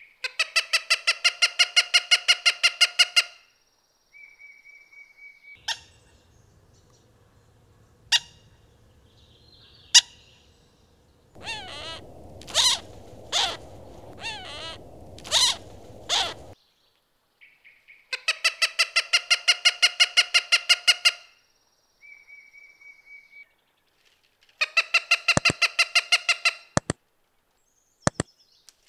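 Cooper's hawk calls: a fast run of harsh, evenly spaced kac-kac-kac notes, then three single sharp kik notes a couple of seconds apart, then a string of drawn-out whaaa calls over a background hiss, the call females typically give when the male brings food to the nest. Two more runs of kac-kac-kac notes follow.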